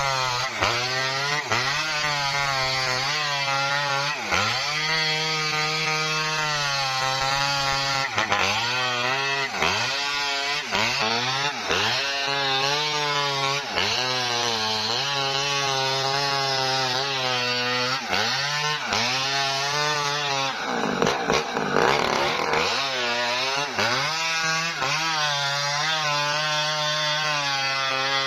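Small Maestro two-stroke chainsaw ripping lengthwise along a felled coconut palm trunk. Its engine pitch dips under load and climbs back every second or two, with one longer, deeper bog about three-quarters of the way through.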